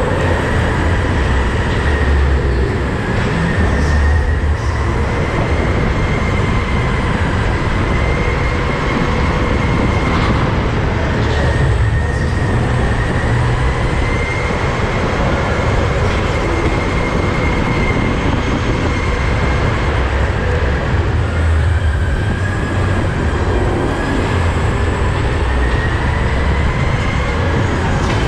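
Go-kart running on a track, heard close up: a steady low rumble with a thin whine that rises and falls every few seconds as the speed changes.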